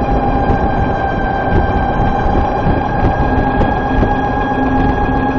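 VX1 motorcycle under way at steady speed, with a steady high-pitched whine from the transmission over road and wind noise: the transmission chirp that the rider finds worst when warm and under load at lower speeds.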